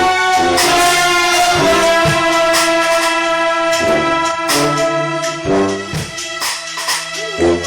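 Live jazz-ensemble music: horns hold long sustained notes over a moving bass line, with regular drum or cymbal hits.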